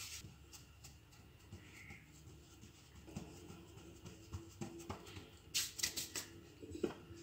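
Faint soft pats and rubbing of hands shaping a ball of floured pizza dough and pressing it flat on the counter, with a few sharper taps a little before the end.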